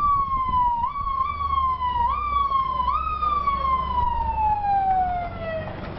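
Police vehicle siren sounding: a tone that jumps up quickly and slides slowly down, repeated about once a second, then one long falling slide that dies away near the end. A low rumble runs underneath.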